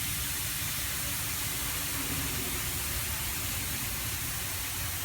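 Steady hiss of gas rushing through a fill nozzle into a Wubble bubble ball as it is inflated, with a low rumble underneath.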